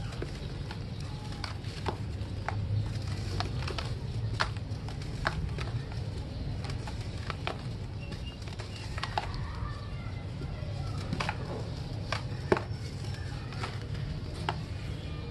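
Dry red dirt blocks crumbled by hand into a plastic tub: scattered sharp cracks and crunches as chunks break and crumbs drop, the loudest snap about twelve seconds in, over a steady low hum.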